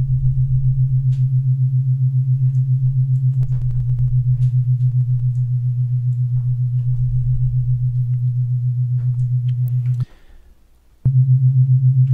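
Low steady sine-wave tone from FL Studio's 3x Osc synthesizer, its slightly detuned oscillators beating against each other in a fast, even pulsing. It cuts off about ten seconds in and sounds again for about a second near the end.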